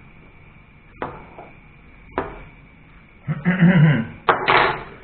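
Two light knocks, then two loud, rough bursts from a man's throat near the end, coughing.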